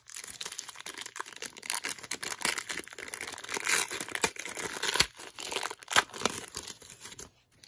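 The paper wrapper of a 1990 NBA Hoops trading card pack is torn and peeled open by hand, crinkling and crackling with many sharp little cracks. The sound stops just before the end.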